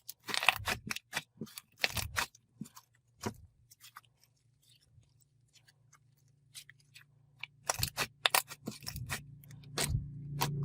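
Slime being squished and poked by hand, a string of sticky clicks and small pops coming in irregular clusters. Music starts to rise near the end.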